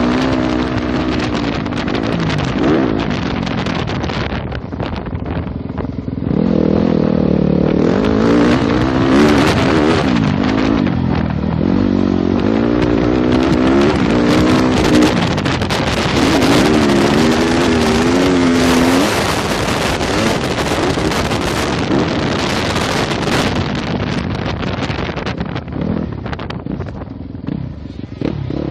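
2015 Yamaha YZ250F four-stroke single-cylinder motocross bike engine being ridden hard, its pitch repeatedly climbing and dropping as the throttle is opened and shut around the track. A loud rushing noise runs over it.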